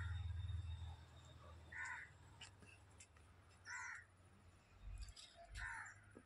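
A crow cawing, single short caws about two seconds apart, four times in all. A low rumble on the microphone is loudest in the first second.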